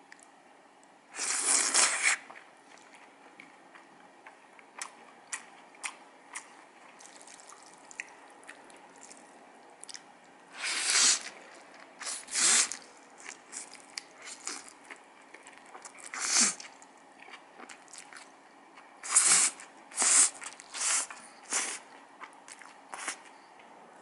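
A person slurping and chewing spicy bibim-guksu noodles: a long slurp about a second in, more slurps later with several close together near the end, and small chewing clicks and clicks of metal chopsticks against a steel bowl between them.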